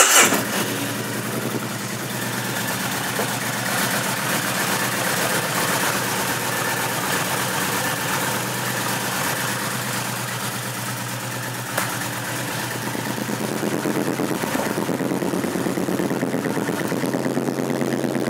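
Kawasaki Vulcan 1600 Nomad's V-twin engine, just started, dropping from a brief higher rev into a steady idle. It grows a little louder in the last few seconds.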